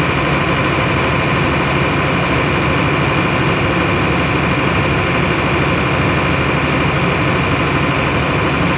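Engine running steadily at an even speed, with no rise or fall. The owner puts a noise from this engine down to the tappets.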